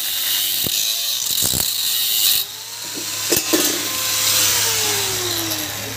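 Handheld angle grinder cutting a flat steel bar: a steady high grinding hiss that eases off about two and a half seconds in. A few sharp metal clicks come through, and near the end the motor's whine falls in pitch.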